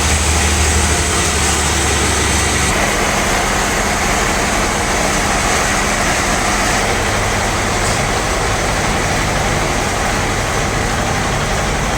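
Large sawmill band saw running, a loud steady mechanical noise; its deep hum drops away and the sound shifts about three seconds in.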